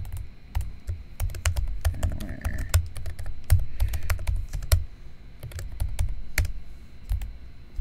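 Typing on a computer keyboard: quick runs of key clicks, each with a soft low thud, broken by short pauses as a few words are typed and deleted.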